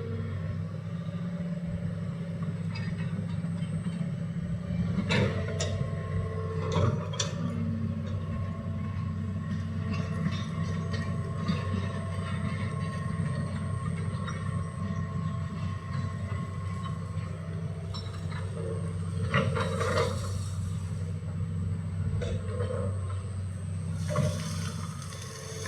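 Hitachi hydraulic excavator's diesel engine running steadily, with several sharp knocks and clanks and two short hissing spells during trench digging.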